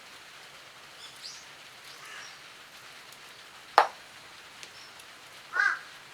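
Faint bird chirps, then a single sharp snap or click about two-thirds of the way in, and a crow cawing once near the end.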